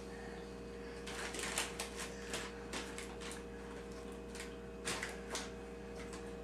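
Small plastic toy pieces clicking and knocking together in quick, irregular taps, in two bursts, over a steady low hum.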